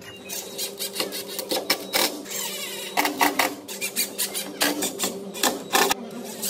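A cordless drill driving fasteners into the underside of a bandsaw table's steel frame, in short runs, among many quick irregular clicks and knocks of metal parts.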